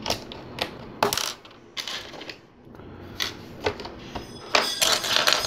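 Plastic LEGO bricks and Technic parts clicking and clattering on a tabletop as they are handled and pressed together: a string of sharp separate clicks, with a busier cluster of rattling near the end.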